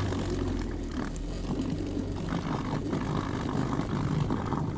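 Boat motor running steadily for a few seconds to move the boat, a low rumble that cuts off sharply at the end.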